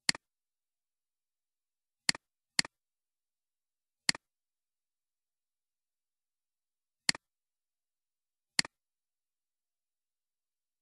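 Computer mouse clicks: six separate clicks spread unevenly over about nine seconds, two of them close together, each a sharp tick with a softer one right after. There is dead silence between them.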